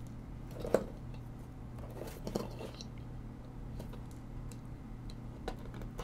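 Hands handling jumper wires and their small plastic connectors on a stepper-driver board: a few scattered soft clicks and rubbing sounds over a steady low hum.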